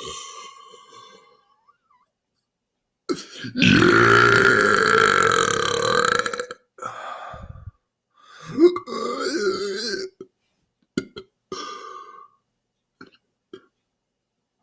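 A man's long, loud belch lasting about three and a half seconds, starting about three seconds in, brought up after drinking club soda. It is followed by shorter, quieter burps.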